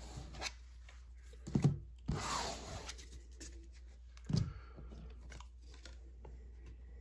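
Trading cards being gathered up off a tabletop by hand: a short scraping rustle about two seconds in, with a soft knock just before it and another a couple of seconds later.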